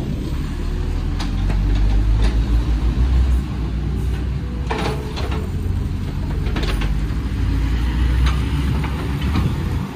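Heavy diesel engines running with a steady low rumble that swells and eases, with a few short knocks scattered through it.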